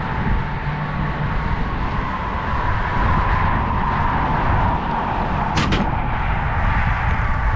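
A flock of blackbirds calling over steady roadside traffic noise, with one sharp crack about five and a half seconds in.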